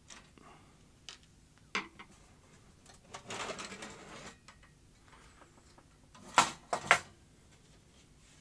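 The metal case of a Yihua 853A pre-heater being taken apart by hand. A few small clicks come first, then about a second of scraping and rattling. Near the end come two sharp knocks about half a second apart, the loudest sounds.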